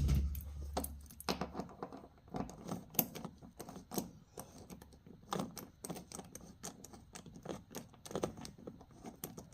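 A hand ratchet clicking in short irregular runs as a stubborn, rusted seat-belt bolt is worked loose. There is a loud knock right at the start.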